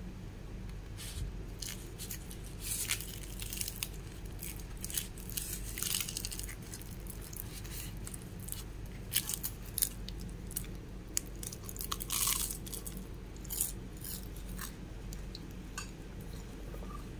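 Flaky paratha being torn and handled by hand, giving many short, irregular crisp crackles and tearing sounds over a low steady hum.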